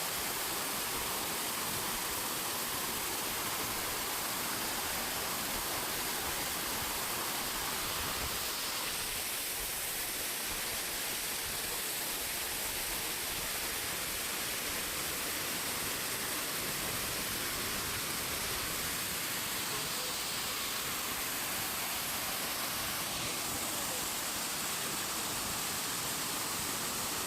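Waterfall, a steady hiss of water falling hard and splashing, bright and thin in the bass.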